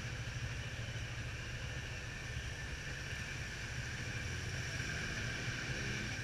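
Yamaha Fazer 250's single-cylinder engine idling steadily with a low, even throb while the motorcycle stands still.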